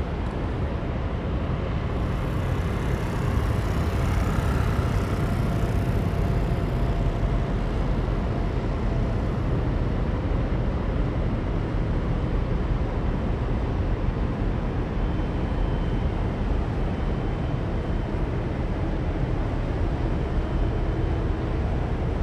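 Steady low rumble of a large container ship, the 400 m COSCO Shipping Aquarius, passing at close range. About two seconds in, a hiss swells and fades again by about seven seconds.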